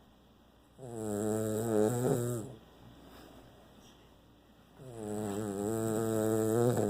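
Dog snoring in its sleep: two long snores, each close to two seconds, with a quiet pause of about two seconds between them.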